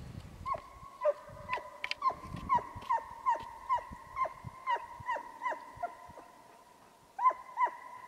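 A pack of scent hounds baying in full cry on the chase: short calls that drop in pitch, about two a second, over a steady held voice. They break off and then give two more calls near the end.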